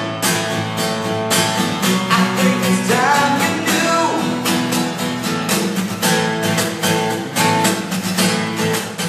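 Cutaway acoustic guitar strummed in a steady rhythm while a man sings along.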